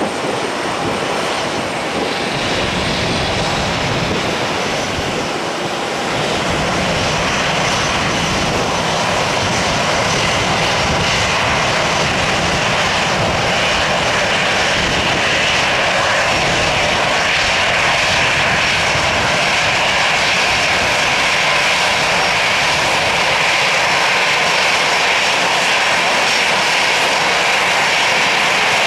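Airbus A320-214's twin CFM56-5B turbofan engines at taxi power: a steady rushing whine that gets a little louder about six seconds in, as the jet turns to face the listener, and holds from there.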